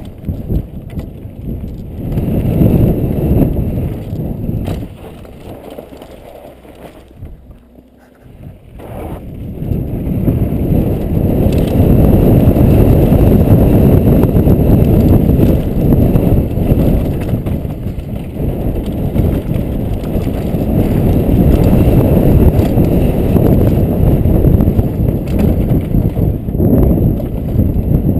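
Wind buffeting a helmet-mounted camera microphone while a mountain bike descends a dry dirt trail, with the knobby tyres rolling and the bike rattling over the ground. The noise eases off for a few seconds about six seconds in, then rises again and stays loud.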